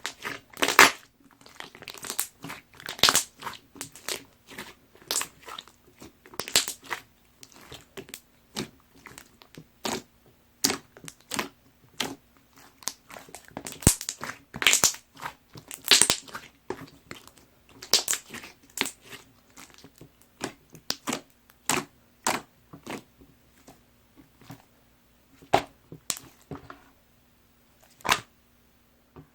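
A large batch of white school-glue slime being squished and pressed by hand, giving irregular sticky pops and crackling clicks, some of them sharp.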